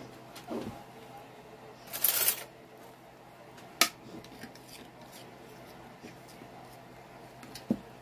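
A hand mixing cornbread batter of cornmeal, flour, egg and milk in a bowl: quiet rubbing and handling sounds, with a brief rustle about two seconds in and a single sharp click against the bowl near four seconds.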